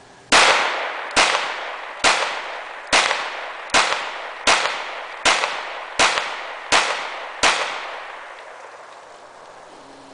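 FMK 9C1 Gen II 9mm semi-automatic pistol firing ten shots in steady succession, a little under one a second, each crack followed by a long echo that dies away.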